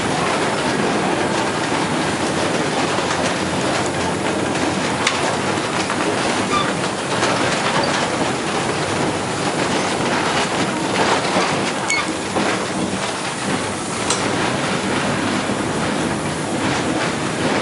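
Vintage electric streetcar running along the track, heard from inside the cab: a steady rumble of wheels on rail. Sharp clicks come now and then at the rail joints, along with a few brief, faint wheel squeaks.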